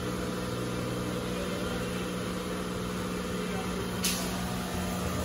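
Steady mechanical hum with a few droning tones, and one short knock about four seconds in.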